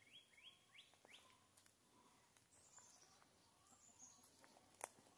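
Near silence with faint bird calls: a quick run of short rising chirps in the first second, then a few higher, falling notes a couple of seconds later, and a faint click near the end.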